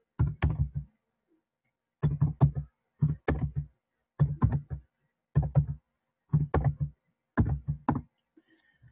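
Typing on a computer keyboard: keystrokes come in quick runs of three to five, about seven runs with short pauses between, as a terminal command is typed out.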